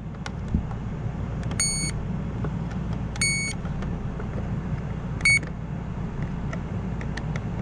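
Power probe circuit tester beeping three times, a short high beep each time its tip touches a fuse that has power, a sign the fuse is good; the third beep is shorter. A steady low hum runs underneath.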